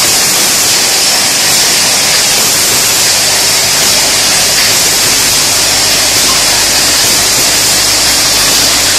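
Steady, loud hiss of a running bottle conveyor and filling line, even throughout with no distinct knocks or clicks.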